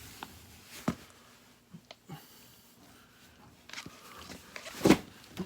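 Scattered knocks and scuffs, loudest about five seconds in, from a man straining to shift a heavy washing machine by himself.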